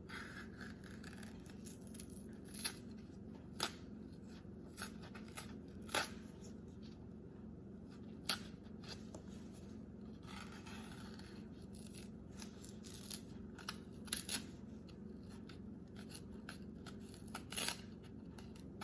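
Sporadic sharp clicks and short scrapes of a knife cutting and peeling an unripe green plantain, over a faint steady hum.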